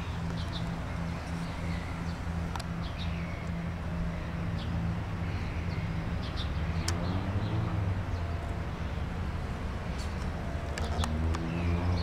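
Birds chirping in short, scattered high calls over a steady low hum.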